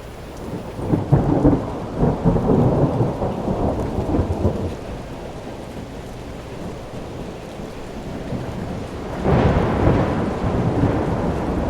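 Rainstorm: steady rain with two long rolls of thunder, the first about a second in and lasting some four seconds, the second near the end.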